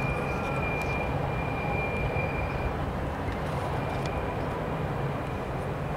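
Three BNSF diesel locomotives working upgrade, a steady low engine drone under a rushing haze of train noise. A thin, steady high squeal runs over it, breaking off briefly about halfway through.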